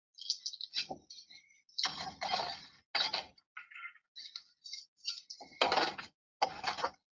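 Irregular scraping and clattering as a plastic bucket is handled and lifted, its loose contents rattling, in about a dozen short bursts with gaps between them.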